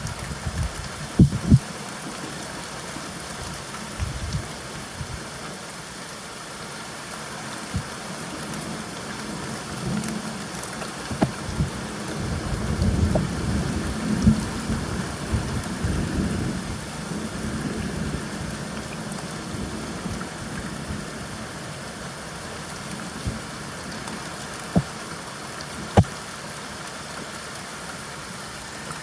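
Steady rainfall hissing, with a few sharp, loud drops striking close by now and then. In the middle a low rumble swells and fades.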